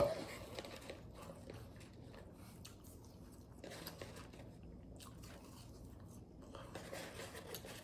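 A man chewing Wendy's French fries close to the microphone: faint chewing and mouth sounds, a little louder near the end.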